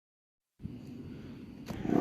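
British Castle Castings air raid siren starting up: a low rumble begins about half a second in, a click follows, and near the end the siren starts winding up, rising in pitch and loudness.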